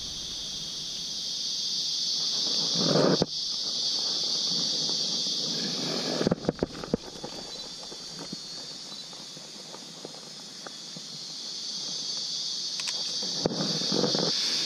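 A steady high-pitched insect drone that fades somewhat midway and swells again near the end. Brief rustling comes about three seconds in, and a few sharp handling clicks come around six and a half seconds in.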